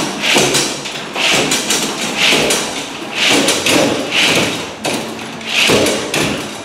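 Magliner appliance hand truck being hauled up a staircase, thudding onto each step in turn, about once a second.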